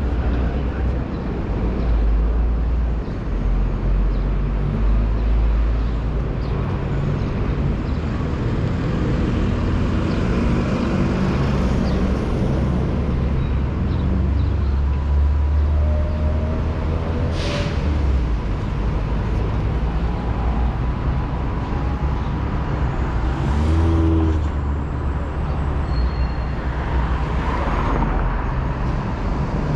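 Busy city-avenue traffic: a steady low rumble of car and bus engines passing, with a brief sharp hiss a little past halfway through.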